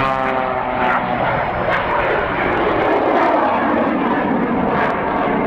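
Aircraft engine noise swelling and easing as a plane passes in an air-show dogfight display, loudest about three seconds in.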